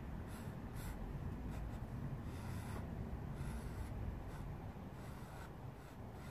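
Pencil scratching on paper in short, irregular strokes while sketching small tree branches.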